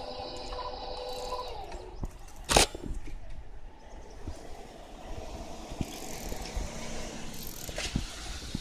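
Japanese level-crossing warning bell ringing, then stopping about a second and a half in as the crossing clears after the train. A sharp thump follows about a second later, then light street noise.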